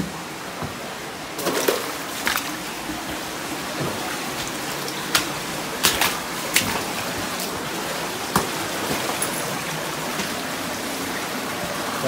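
Stream water running and trickling among rocks, a steady rush, with a scattered handful of sharp knocks and clicks.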